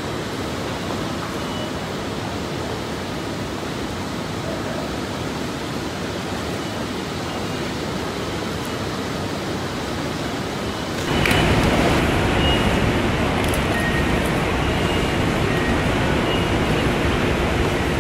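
Steady ambient noise of a large railway station hall, with no single event standing out. About eleven seconds in it jumps to a louder, fuller level, with a few faint short high tones after that.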